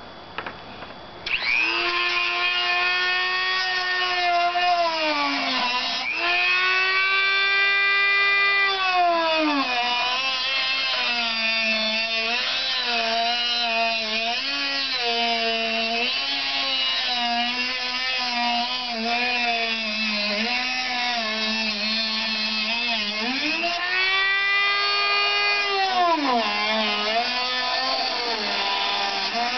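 Handheld corded rotary tool cutting a white plastic deck-drain section. It starts up about a second in, and its high motor whine sags in pitch each time the cutter bites into the plastic and rises again as the load eases.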